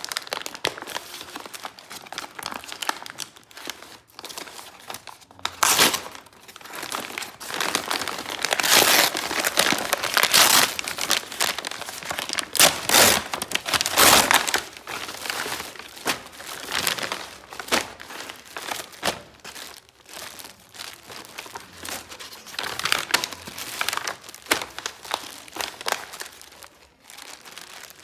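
Kraft-paper mailer bag and plastic wrapping crinkling and rustling as a parcel is opened by hand and a plastic-wrapped item is pulled out, in irregular bursts, loudest through the middle.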